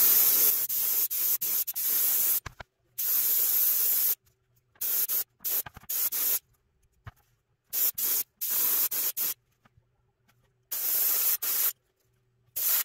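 Master airbrush spraying paint in bursts of air hiss: one long burst, then about a dozen shorter ones, each starting and stopping abruptly as the trigger is worked.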